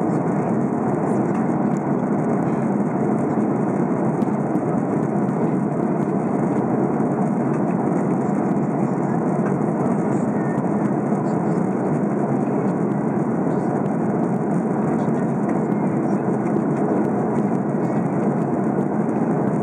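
Steady cabin noise of an Airbus A330-300 in flight, the engines and rushing airflow heard from a window seat by the wing as an even, unchanging roar.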